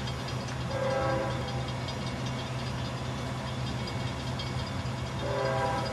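GE Evolution-series diesel-electric locomotive approaching with its V12 engine running steadily under load. Two short pitched tones sound, about a second in and again about four seconds later.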